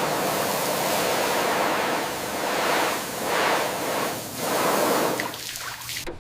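Steady hissing spray of water that swells in three surges over the second half, then fades near the end.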